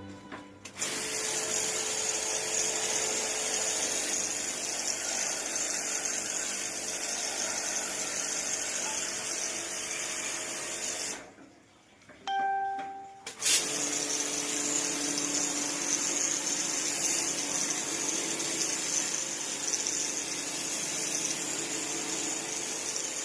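Steady spray of water hissing, with a pause of about two seconds near the middle before it starts again.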